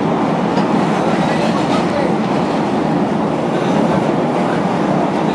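Chicago "L" rapid-transit train car running on its rails, heard from inside the car: a steady, even running noise of wheels and car body.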